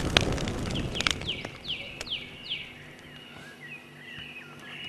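A branch bonfire crackling and popping over a noisy rush, dying away in the first second or two. A songbird then calls: four or five quick downward-slurred whistles, followed by softer warbling notes.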